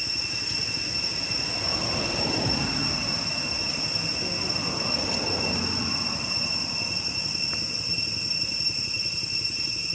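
Steady high-pitched insect drone. A low rumble swells and fades about two to six seconds in.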